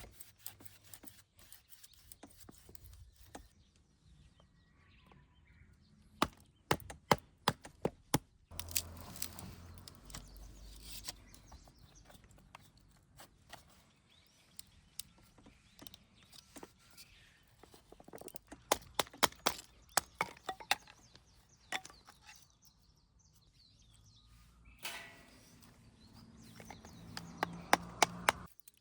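Firewood being chopped and split for a campfire: runs of sharp, rapid wooden knocks and cracks, three times, with quieter pauses between.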